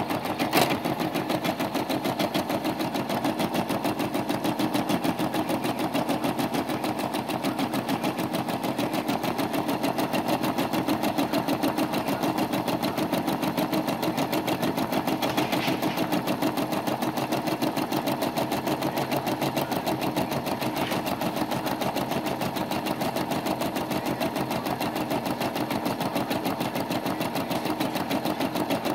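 Brother SE425 embroidery machine stitching a design, its needle running at a steady, rapid, even rate while the hoop moves the fabric. A single sharp click comes about half a second in.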